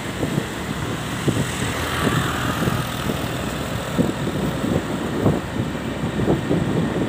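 Wind buffeting the microphone on a moving vehicle, an irregular low rumble and flutter over steady engine and road noise.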